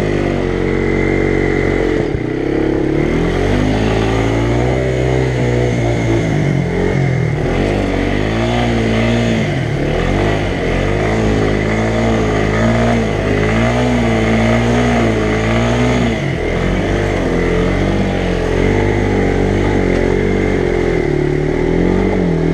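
ATV engine revving under load as the quad is driven through a deep mud hole, its note rising and falling again and again with the throttle.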